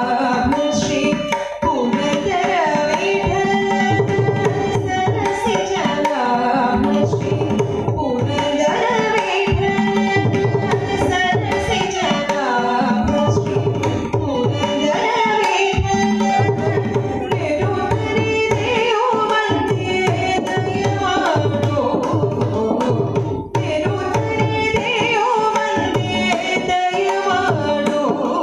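Carnatic vocal music: a woman sings a melody with violin accompaniment, over a steady drone. A mridangam plays a dense, rhythmic pattern of strokes throughout.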